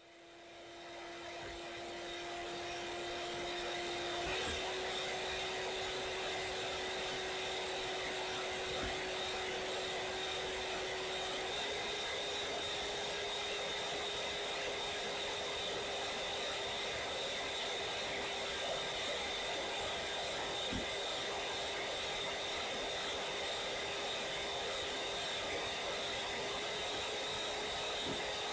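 Electric hand mixer running steadily, its wire beaters whipping warm eggs and sugar into a foam in a bowl. It fades in over the first few seconds, and its whine steps up slightly in pitch about four seconds in and again around twelve seconds.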